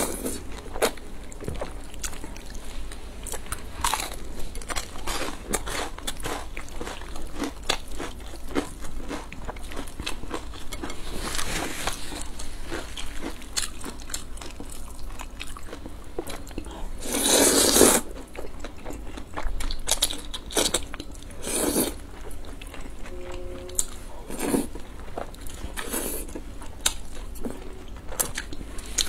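Close-miked mouth sounds of someone eating wide flat noodles: wet chewing with crunchy bites and slurps, with one longer, louder slurp lasting about a second a little past the middle.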